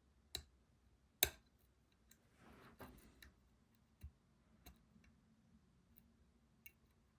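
Lock pick and tension wrench working a pin tumbler lock during picking: scattered sharp clicks, the loudest about a second in, with a brief scrape of the pick a little before three seconds.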